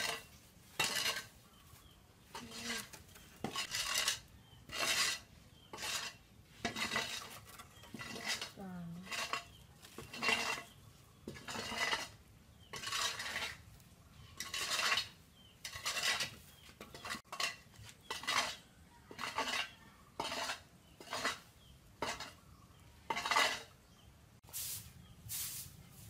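Regular scraping or rubbing strokes, one about every three quarters of a second, each a short rasping noise.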